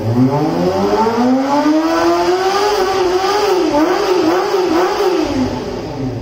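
Kawasaki ZX-25R's 250cc inline-four engine revving: the pitch climbs steadily for the first couple of seconds, is held high with a few quick blips, then drops away near the end.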